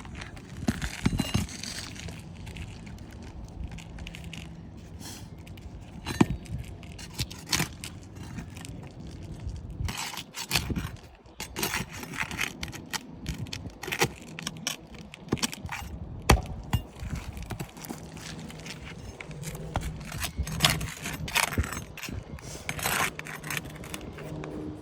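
Asphalt roof shingles being worked loose and lifted: irregular scrapes, crackles and sharp clicks as the sealed tabs are pried up.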